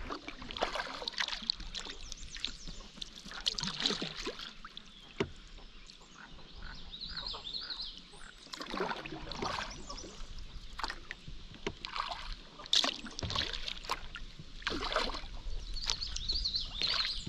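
Kayak paddle blades dipping and splashing in river water, a stroke about every second.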